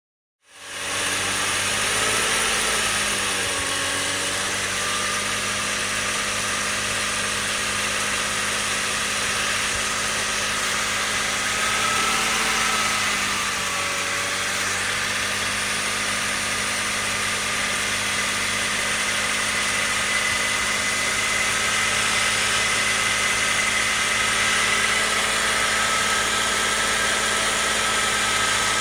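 BMW 330i engine idling steadily, heard from inside the cabin, with a rattle that the owner links to the timing chain. The idle wavers slightly twice.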